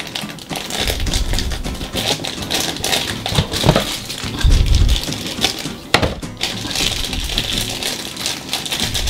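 Plastic blind-bag wrapping crinkling and small plastic toy pieces clicking and tapping as a Tsum Tsum figure and its accessories are unwrapped and handled, with a few dull knocks on the table.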